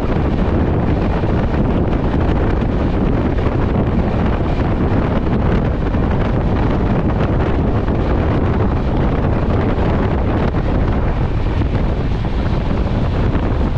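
Loud, steady wind rushing over the microphone held out of the door of a passenger train running at speed, with the train's running noise mixed in.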